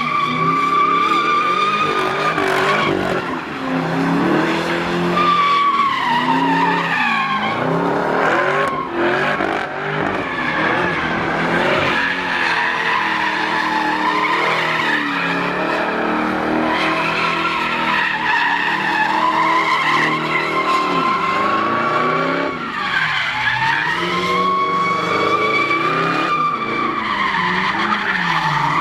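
The supercharged V8 of a second-generation Cadillac CTS-V revs up and down as the car spins donuts, its rear tyres squealing continuously. The squeal's high, wavering tone dips briefly a few times as the revs change.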